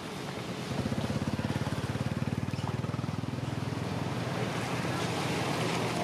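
An engine running with a fast, even putter that comes in about a second in, over a steady hiss.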